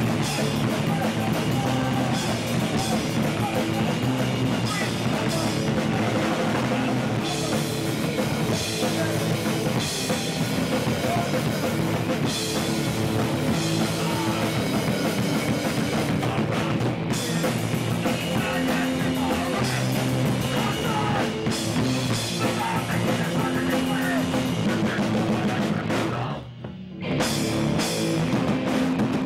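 Hardcore punk band playing live: distorted electric guitars, bass and drum kit at full volume. Near the end the band stops for about a second, then comes back in.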